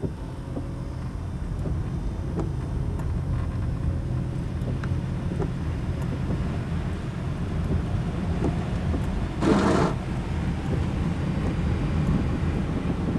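Inside a car driving on a wet road in rain: steady low rumble of the engine and tyres. A brief rush of noise about nine and a half seconds in.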